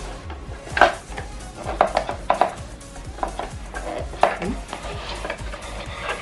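Hard plastic clicks and knocks as a GoPro HERO8 Black is handled and unscrewed from its plastic mount, about five sharp clicks spread roughly a second apart.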